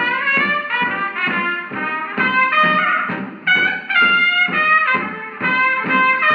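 Emerson 108 antique radio playing brass-led music with trumpets through its small speaker. The sound is thin, with no deep bass and no high treble.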